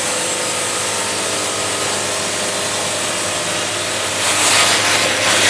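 Portable band sawmill running, its band sawing through a log, with a steady hum and hiss that swells louder twice near the end.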